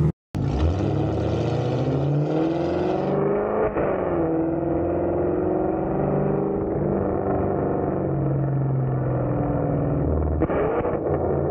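Exhaust of a sixth-generation Camaro V8 running catless long-tube headers, an X-pipe and an AWE Track axle-back, heard right at the tailpipes while driving. It climbs in pitch under throttle about two seconds in, drops back around four seconds, runs on fairly steady, and revs up briefly again near the end.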